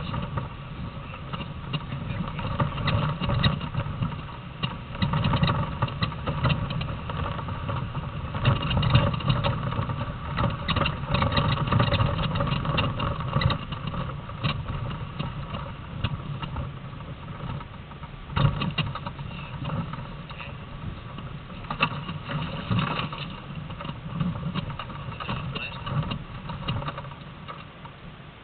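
Land Rover Defender 4x4 running off-road over a rough dirt track, heard from on board: a continuous engine rumble with frequent knocks and rattles as the vehicle bounces. The loudness rises and falls and eases off near the end.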